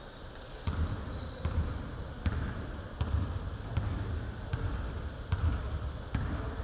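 A basketball being dribbled on a hardwood gym floor: a steady run of bounces, about eight of them, a little more than one a second.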